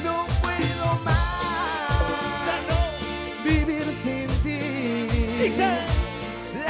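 Cumbia band playing live: a lead melody with bending notes over bass and a steady drum beat, with about two low drum hits a second.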